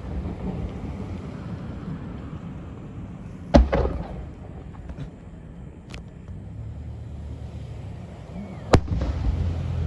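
Fireworks shells bursting overhead: two loud bangs about five seconds apart, with a fainter pop between them, each followed by a low echo that dies away.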